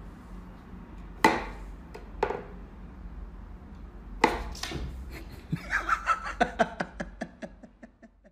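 Wooden whack-a-mole cat toy box being played with: a few separate sharp wooden knocks, then near the end a run of light taps that come faster and fade away.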